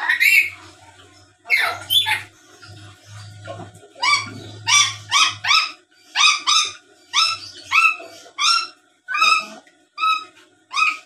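Black-capped lory giving a string of short, sharp, shrill calls, a few at first and then a regular run of about two a second from about four seconds in.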